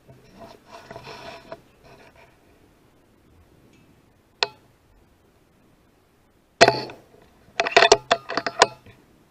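Rifle shot at a rat: a loud, sharp report about two-thirds of the way in, preceded by a single short click a couple of seconds earlier and followed about a second later by a quick run of sharp clicks and knocks. Faint rustling near the start.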